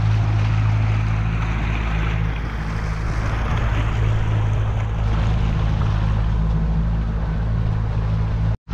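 Boat engine running steadily under way, with a rush of water and wind noise over it; the sound cuts out for a split second near the end.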